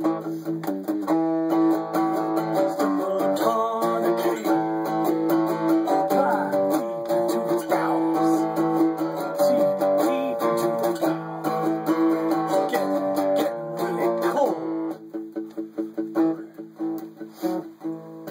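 Acoustic guitar played: strummed chords ringing for most of the stretch, thinning to quieter, sparser picked notes about fifteen seconds in.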